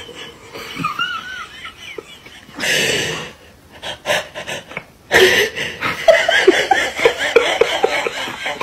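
A person laughing hard in rapid, breathy bursts, starting about halfway through.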